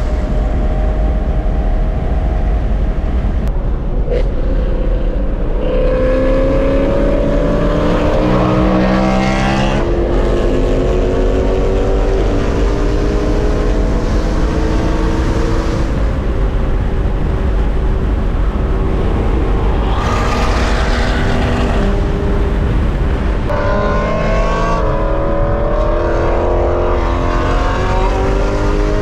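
BMW E92 M3's S65 V8 through an aftermarket exhaust, pulling through the gears: the engine note climbs slowly in pitch, drops back, and climbs again several times.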